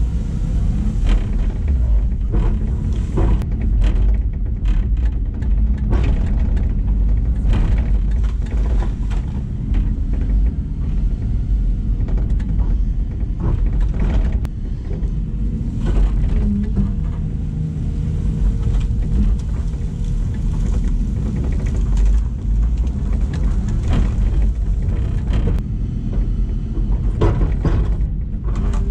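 LiuGong 922E excavator's Cummins diesel engine running steadily under load, with irregular clunks and rattles from the machine working.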